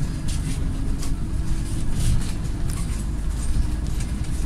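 Inside a moving Scania city bus: the steady drone of its engine and road noise, with light rattling ticks from the cabin.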